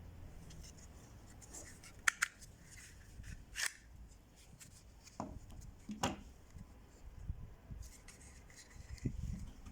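Handling of a kydex multi-tool sheath: soft rubbing and scattered sharp plastic clicks, a pair about two seconds in, then single ones around three and a half, five, six and nine seconds in.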